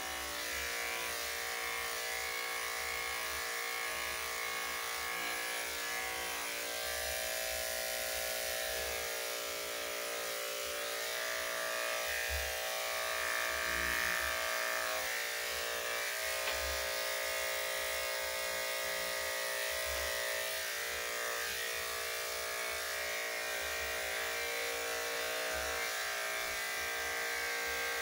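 Electric dog grooming clippers running with a steady buzz.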